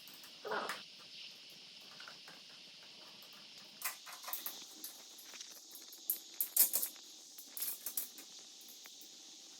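Scattered clicks and light knocks of hand tools and parts being handled during motorcycle reassembly, with a duller knock about half a second in and sharper clicks in clusters after about four seconds, over a faint steady hiss.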